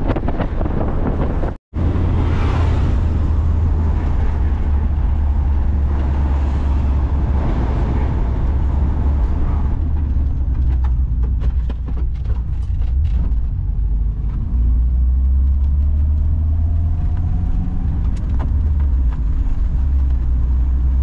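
Volkswagen Kombi engine and road noise heard from inside the cab while cruising: a steady low drone. The sound cuts out for an instant about two seconds in, then carries on unchanged.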